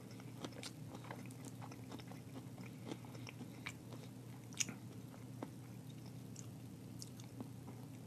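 A man chewing a mouthful of vegetable stir fry with his mouth closed: faint, many small wet clicks, with one sharper click about four and a half seconds in.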